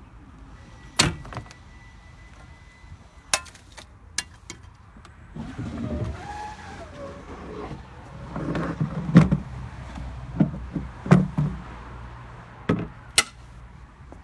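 Metal wheelchair ramp of a taxi conversion being unlatched and unfolded: a series of sharp metal clacks and clunks, with a longer scraping slide in the middle as the sections move into place.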